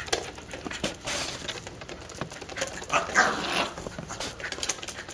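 A small dog making short excited vocal sounds as it bites and pushes an inflated plastic beach ball, in irregular bursts with the loudest about three seconds in.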